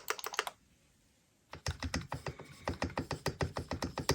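Typing on a mechanical keyboard: a quick run of keystrokes stops about half a second in, and after about a second's pause a second run of fuller, deeper keystrokes starts.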